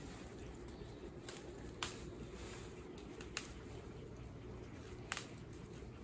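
Wild tea leaves being plucked by hand from shrubs: faint rustling of foliage with a few sharp little snaps, the clearest about two, three and five seconds in.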